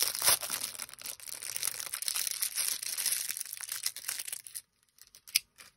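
Plastic packaging crinkling and rustling as it is handled and torn open, which stops abruptly about four and a half seconds in, followed by a couple of sharp clicks near the end.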